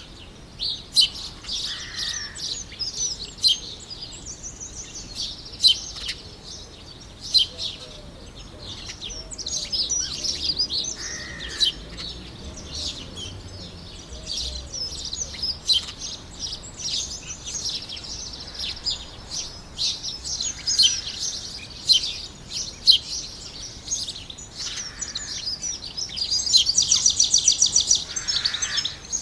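Several small songbirds singing and chirping in a continuous mix of quick high notes, with a few lower calls now and then and a loud, fast trill near the end.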